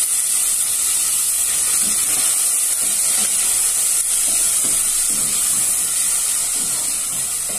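Chopped beef frying in hot oil in a pan: a steady, loud sizzle.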